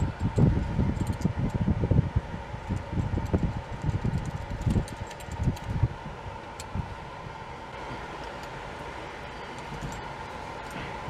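Handling noise of hands working at a manual transmission's shifter opening in a truck's cab floor: irregular low knocks and rustles that die down after about seven seconds, over a steady faint hum.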